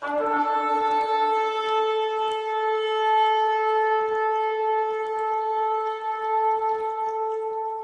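Shofar (ram's horn) sounded in one long, held blast on a single pitch.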